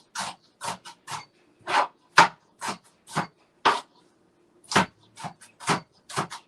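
Kitchen knife chopping celery on a cutting board: a run of short, sharp chops at an uneven pace of about two to three a second, pausing for about a second midway.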